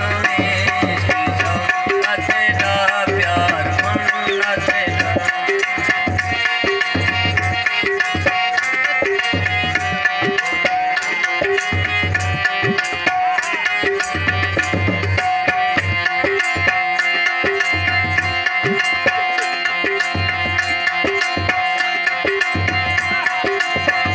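Harmonium and tabla playing an instrumental passage of a folk song. Held harmonium notes run over a steady tabla rhythm of deep bass strokes and quick sharp strokes. A singing voice trails off in the first few seconds.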